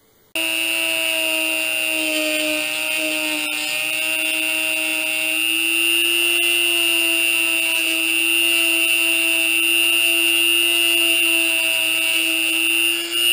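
Handheld variable-speed rotary tool switched on about half a second in and running at high speed with a steady high whine, its bit grinding slowly into the composite rifle stock to widen the magazine inlet for new bottom metal.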